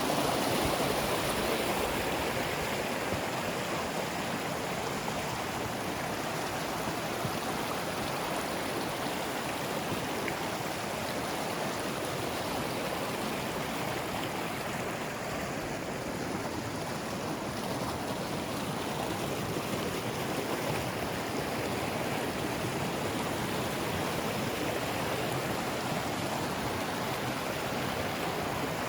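Mountain stream flowing, a steady rush of water with no break.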